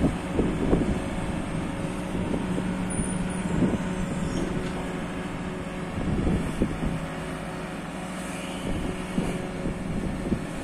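Diesel engine of a JCB 540-170 telehandler running steadily with a low, even drone. Irregular gusts of wind buffet the microphone.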